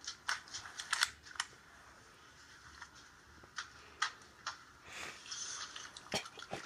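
A series of irregular sharp clicks and light knocks, about ten of them spread over several seconds.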